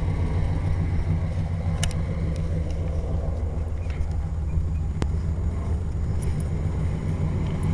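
1988 Chevy Silverado 1500's engine idling steadily, heard at the rear near the stock exhaust tips: a low, even rumble.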